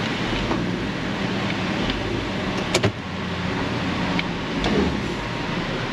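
2008 Kia Sedona's 3.8-litre V6 idling steadily in gear, held against the brakes to load the motor mounts. A single click about three seconds in.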